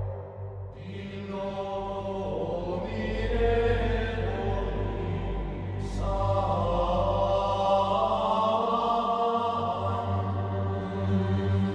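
Background music of voices chanting in long held notes, the pitch shifting every few seconds.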